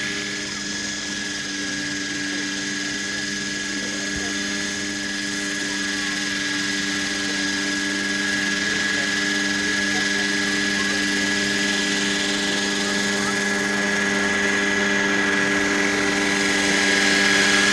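Large scale radio-controlled model helicopter hovering low and settling onto the grass, its drive and rotor running with a steady whine of several fixed pitches. The sound grows slightly louder toward the end.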